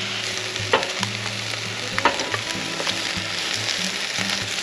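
Garlic chives and bean sprouts sizzling as they are stir-fried in a pan, with a steady hiss. A utensil knocks sharply against the pan twice, first just under a second in and again about two seconds in.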